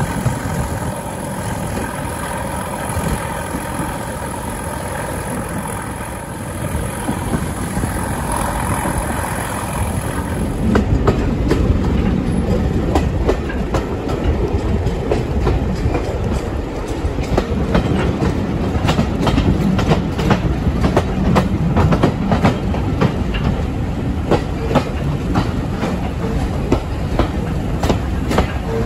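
Class 31 diesel locomotive's English Electric engine running with a steady pitched note. About eleven seconds in, the sound changes suddenly: the train's wheels clatter over rail joints in a quick run of clicks, over a heavier rumble.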